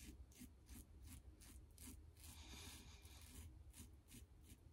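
Faint, short scraping strokes, several a second, of an Aylsworth Drakkant double-edge safety razor with a Tatara blade on its fourth use, cutting five days' mustache stubble through shaving lather.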